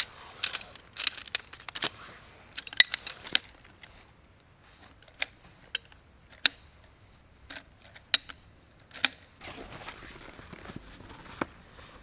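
Shock-corded aluminium poles of a Helinox folding table frame being unpacked and snapped together. A flurry of clicks and clacks with fabric rustling comes first, then single sharp clicks every second or so, and rustling again near the end.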